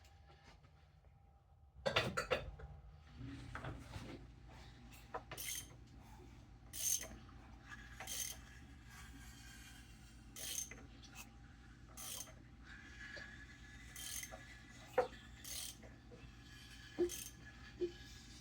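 A ratchet wrench clicks in short bursts about every second or two as the 7M-GTE engine is turned over by hand to rotate the camshafts. A steady low hum runs underneath.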